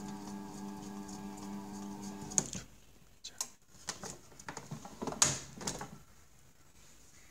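Bread maker's kneading motor humming steadily, cut off with a click about two and a half seconds in. A few sharp clicks and knocks follow.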